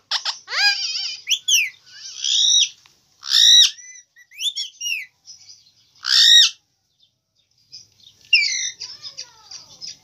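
Indian ringneck parakeet giving a string of short, high calls that rise and fall, with chirps between them and brief pauses.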